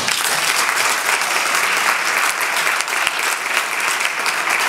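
An audience applauding: dense, steady clapping from many people that starts abruptly and keeps going.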